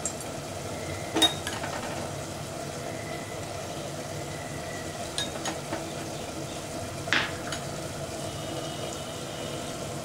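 Steady low hiss from a stove under a nonstick pan of oil warming up, with no frying yet. A few light clicks come through, the clearest about seven seconds in.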